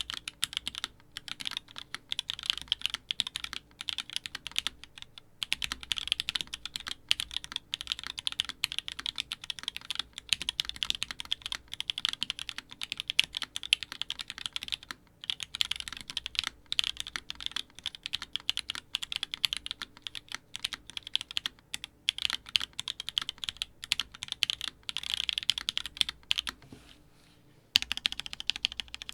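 Continuous fast typing on a Keycult No.1/65 mechanical keyboard with lubed Turquoise Tealios linear switches on a polycarbonate plate and GMK keycaps, a dense run of keystrokes. Typing stops for about a second near the end, then resumes.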